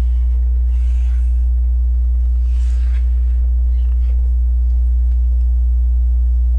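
Steady, loud low electrical hum, with a few faint rustles of LEGO pieces being handled about a second in and again near three seconds.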